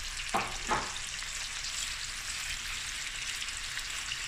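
Head-on, shell-on prawns sizzling in hot oil and butter in a stainless steel pan on medium-high heat, being turned with a silicone spatula. There are two short knocks about a third of a second apart in the first second.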